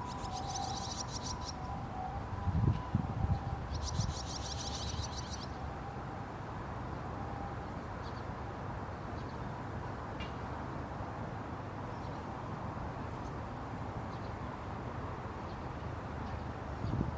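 Barn swallow fledglings giving rapid, twittering begging calls in two short bursts, one at the start and one about four seconds in, then only a few faint chips. A few low rumbles come around three seconds in.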